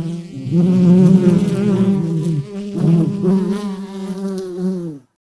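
Bee buzzing in flight: a steady drone whose pitch wavers up and down, with a second buzz overlapping it for a while. It cuts off about five seconds in.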